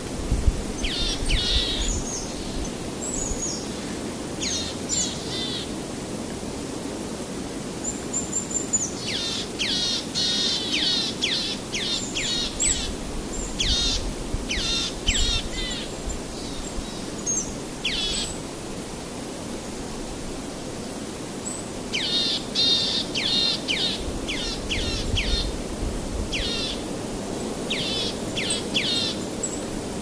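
Small birds chirping in quick runs of high, sharp notes, coming in several groups with pauses between, over a steady low rushing background noise.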